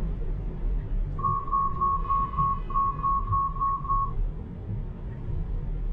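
Tesla collision-warning chime: a rapid run of about ten short beeps at one steady pitch, about four a second with one brief break, warning of a potential collision with a car in the blind spot. Under it, a steady low road rumble in the car's cabin.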